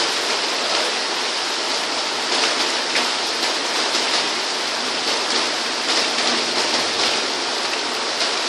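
Heavy rain falling steadily, an even dense hiss with no letup.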